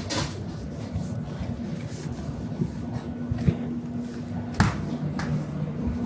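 Convenience-store room tone: a steady hum from the refrigerated drink cases, with a few handling knocks and clicks, the sharpest about three and a half and four and a half seconds in.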